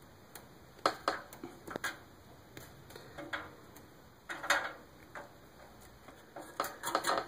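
Power supply leads and their plastic connectors being handled, giving scattered light clicks and rustles, with a small cluster about four and a half seconds in and more near the end.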